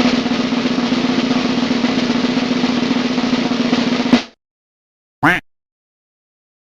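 Snare drum roll lasting about four seconds, ending in a single louder hit. About a second later comes a brief separate sound that rises in pitch.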